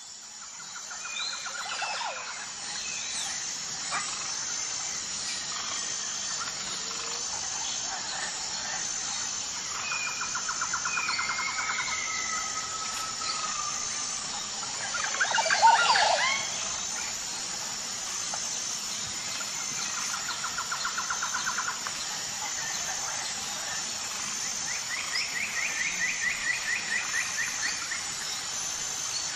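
Bird calls, short trills and gliding whistles, over a high note repeated about once a second; one louder call stands out about halfway through. The sound fades in over the first two seconds.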